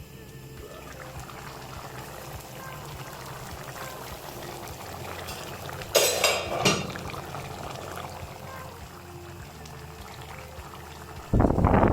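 Liquid bubbling and being poured in a cooking pan while a curry cooks. Two short loud bursts come about six seconds in, and a louder one near the end.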